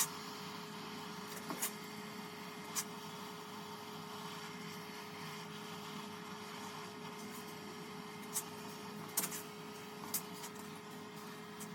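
Steady mechanical hum with one constant tone, and a handful of short, sharp clicks or taps scattered through it.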